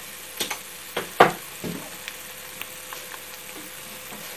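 Onions and eggs sizzling gently in butter and oil in a frying pan on low heat, with a few sharp clicks and taps over the hiss, the loudest about a second in.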